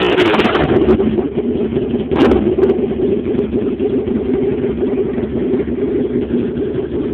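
Aprilia RSV1000's 60-degree V-twin on a straight-pipe exhaust, running loud. Revs fall away at the start and it is blipped briefly about two seconds in, then it settles to a steady idle.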